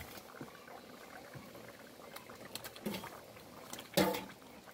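Curry simmering faintly in a pot, with a few light clicks, then a sharp clank about four seconds in as fish is scraped from a metal bowl into the pot with a spoon.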